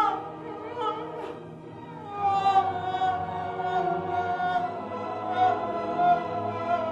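Choral music: several voices holding slow, sustained notes with vibrato, swelling louder about two seconds in.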